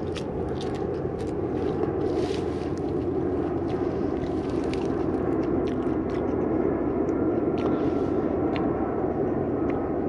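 A raw sea beet leaf being chewed, with small crunches and clicks mostly in the first second or so, then scattered rustles as the leaves are handled. Under it runs a steady low background noise.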